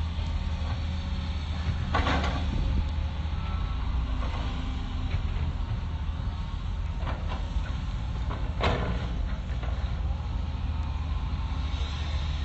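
Hitachi excavator's diesel engine running steadily, with a few sharp knocks: one about two seconds in and two more a little past the middle.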